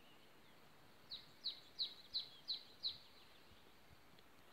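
A small songbird calling faintly: a run of six short, high, falling notes at about three a second, between one and three seconds in.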